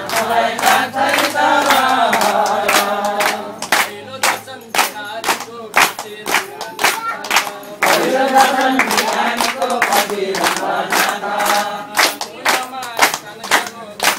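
Group singing a Nepali Krishna bhajan in chorus, with hand-clapping keeping an even beat about twice a second. The singing is full at first, falls away after about four seconds and comes back strongly around eight seconds, while the claps carry on.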